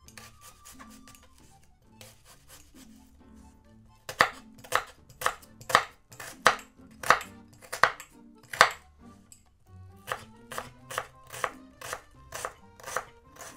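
Santoku knife chopping an onion on a wooden cutting board: light slicing taps at first, then loud sharp chops about two a second from about four seconds in, and quicker, lighter chops near the end.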